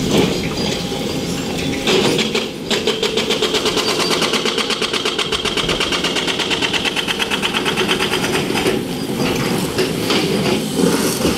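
Excavator at work: machine noise with a rapid, even clatter that starts about three seconds in and eases off after about eight seconds.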